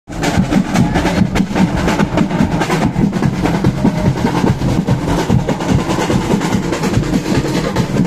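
Carnival foot group's marching drum band playing a fast, dense rhythm on snare drums and other hand-carried drums.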